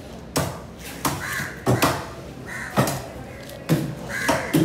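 Crows cawing three times, over several sharp knocks of a knife chopping skipjack tuna on a wooden block.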